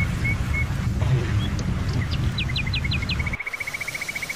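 Birds calling over steady rain: scattered short chirps, then a few falling whistled notes, then a fast, even trill near the end. A low rumble runs under the first part and stops abruptly about three and a half seconds in.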